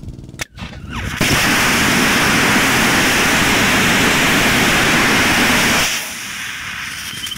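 Small liquid-propellant rocket engine with a converging-diverging bell nozzle, about 100 kg of thrust, firing: it comes up to full, steady noise abruptly about a second in. The abrupt start is a hard start, with the tanks pressurised before the main propellant valves open. The engine runs for about five seconds and then shuts down, the noise dying away within a second.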